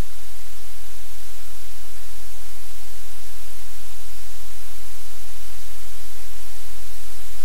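Loud, steady static hiss with a low hum beneath it, unchanging throughout.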